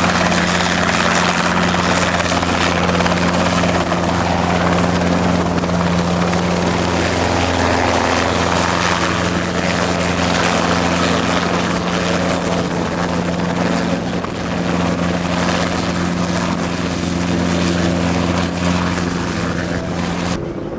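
Helicopter running steadily, a constant engine and rotor drone with a dense rushing noise over it, stopping abruptly near the end.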